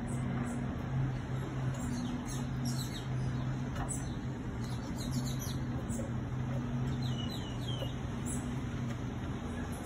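Funicular car moving along its track: a steady low hum with an even rumble underneath. Birds chirp over it throughout, in quick high notes that fall in pitch, a cluster of them about seven seconds in.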